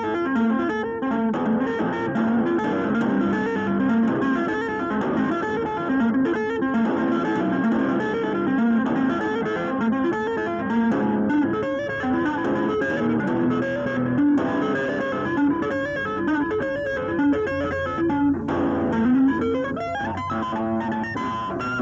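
Electric guitar played with two-handed tapping on the fretboard: a continuous stream of quick neoclassical-style note runs.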